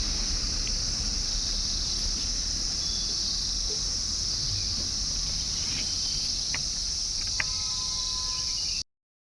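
Steady high-pitched insect chorus over a low rumble, with a few faint sharp clicks near the end. The sound cuts out completely for about half a second just before the end.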